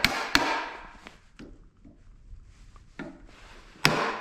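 Hand tool striking into a log while a notch is cut: two sharp blows at the start, a few lighter knocks and scrapes on the wood, then another hard blow near the end.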